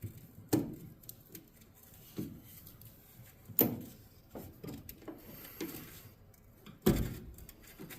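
Sharp metal clicks and knocks of a makeshift tool prying at the small triangular retainer clip on a dryer's idler pulley, about one every second or so, the loudest near the end.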